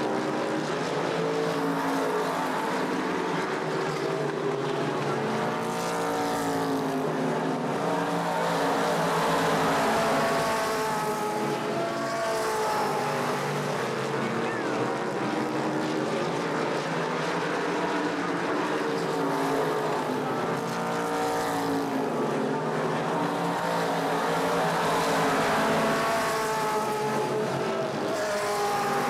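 Late-model stock cars racing, a pack of V8 engines running hard. The engine note rises and falls, swelling and fading again and again as the cars come past.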